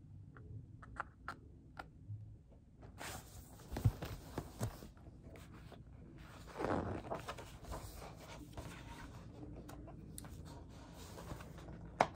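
Pages of a large hardcover picture book being turned and handled: paper rustling and sliding, with a few soft knocks. Small clicks come first, the rustling starts about three seconds in, and a sharp tap comes near the end.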